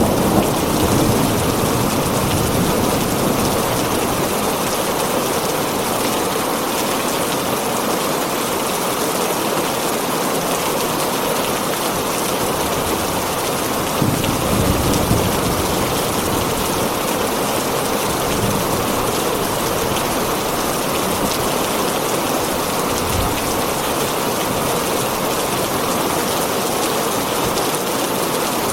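Heavy rain pattering steadily on a tin roof, with a low thunder rumble dying away at the start and another about halfway through.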